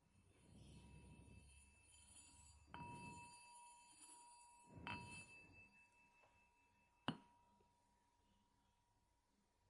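Near silence with a faint bell: two soft strikes about two seconds apart, each left ringing at the same steady pitch, then a single sharp click a couple of seconds later.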